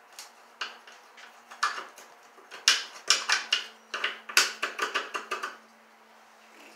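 Irregular sharp clicks and taps of hands and a screwdriver working at a small overhead electrical box, some in quick runs, stopping about five and a half seconds in.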